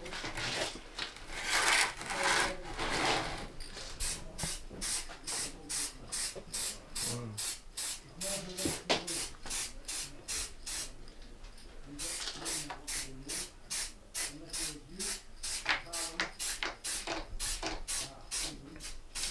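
Aerosol spray paint can hissing: a longer spray near the start, then a run of short quick puffs about two or three a second, with a brief pause around the middle.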